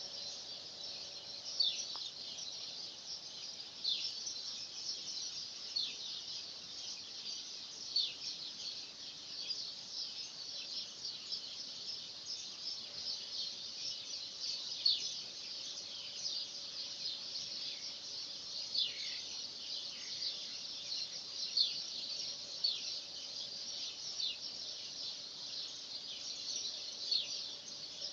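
A dense chorus of many small birds chirping at once, a steady stream of short, high chirps, many sliding downward in pitch.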